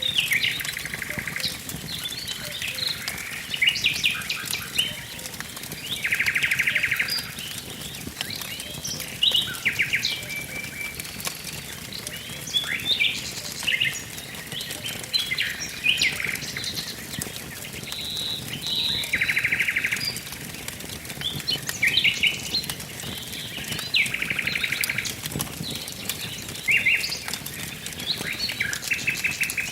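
Forest birds singing over a crackling wood fire: varied chirps and whistled phrases, with a rapid trill about a second long recurring five times, and frequent small pops and snaps from the burning wood.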